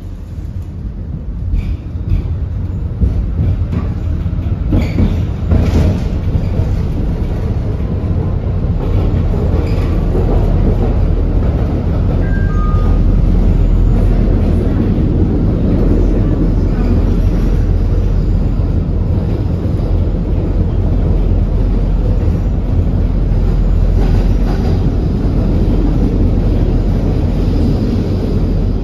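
Konstal 805Na tram car getting under way and running along the track, heard from inside the car: a steady low rumble of wheels on rails and running gear that builds over the first few seconds. A few sharp clicks and knocks sound in the first several seconds.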